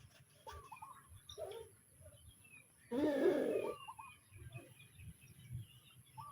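Backyard chickens clucking and calling in short, scattered notes, with one louder, harsher call lasting under a second about three seconds in.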